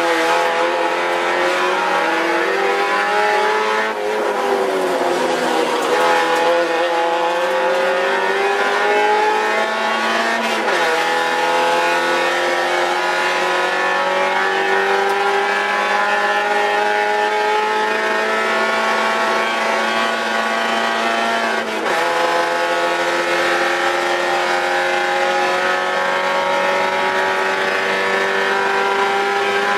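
A Spec Miata's four-cylinder engine heard from inside the cabin under hard acceleration. Its pitch climbs slowly and drops sharply twice at upshifts, about a third of the way in and again about two-thirds in, after an early dip as the car lifts for a corner.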